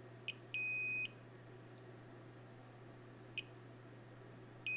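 Multimeter in continuity mode beeping as its probes touch pads of a NAND chip: a steady high-pitched beep of about half a second near the start and another starting near the end, with short faint chirps in between as the probe touches other pads. Each beep means the probed pad is connected to ground.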